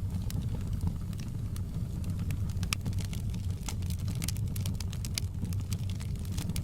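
Fireplace wood fire crackling, with irregular sharp pops and snaps over a low steady rumble of the flames.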